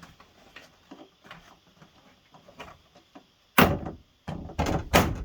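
Light taps and rustling, then from about three and a half seconds in a run of loud knocks and thumps as a door trim panel is pressed against a pickup's door and its clips push into the holes.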